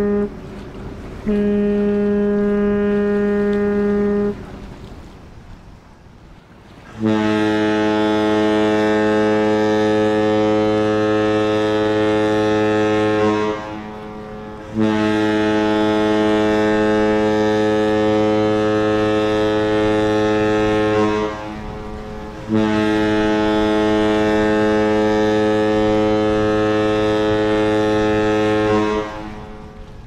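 A ship's horn ends with a short blast and then a held note of about three seconds. After a pause, the deeper horn of the cruise ship Seabourn Ovation sounds three long blasts of about six seconds each, with short gaps between them.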